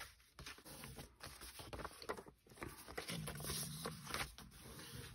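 Sheets of paper rustling and crinkling in the hands as pages are folded and opened out, with short irregular crackles.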